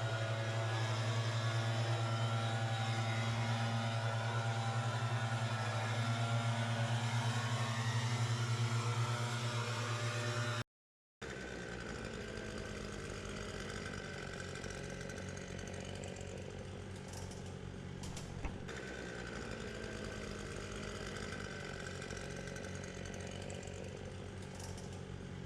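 Engines of lawn power equipment running steadily. About 11 seconds in the sound cuts out for a moment, and a quieter engine sound with a few light clicks follows.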